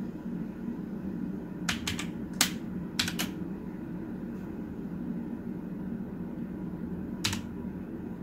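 Key presses on a red-switch mechanical keyboard: a few sharp clacks in small clusters between about one and a half and three seconds in, and one more near the end, over a low steady hum. The keys are being pressed to switch the keyboard's backlight mode.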